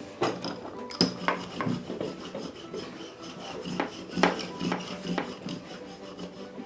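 Toy plastic roller rubbing and knocking against a tabletop as Play-Doh is rolled flat, with a handful of scattered clicks.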